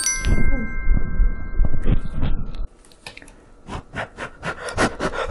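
A chime-like sound effect of several held tones that rings for about two and a half seconds and then cuts off. Then comes a run of small clicks and rubs of computer parts being handled.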